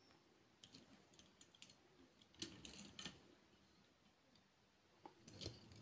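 Faint, scattered clicks and taps of a diecast toy being handled: a model car pushed along the upper deck of a Corgi Major car transporter and its ramp pieces moved, with a small cluster of clicks about halfway through.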